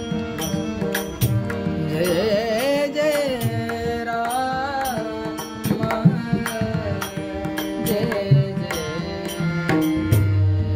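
A devotional bhajan in classical style: a male singer sings long ornamented, gliding phrases over a steady held drone, with pakhwaj (mridang) drum strokes keeping time throughout.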